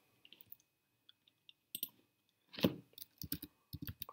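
Computer keyboard and mouse clicks: a few scattered clicks, then a quick run of keystrokes over the last second or so as a word is typed.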